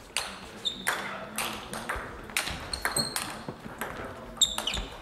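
Table tennis rally: the celluloid ball clicks sharply off the bats and the table, about two hits a second, each with a short echo off the sports hall. The loudest hit comes near the end. A few short high squeaks fall between the hits.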